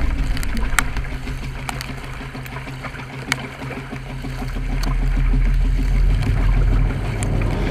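Water rushing and splashing around a sprint kayak as it is paddled, heard from the bow, with a steady low rumble and scattered sharp ticks.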